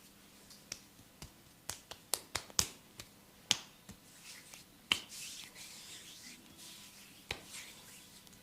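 A run of sharp snaps from a masseuse's hands during a head and back massage, about a dozen in the first five seconds, with the loudest near the middle. After that comes a soft hiss of hands rubbing on skin and hair, and one more snap near the end.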